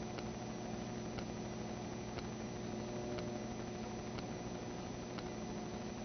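Steady hiss and electrical hum, with a faint tick about once a second.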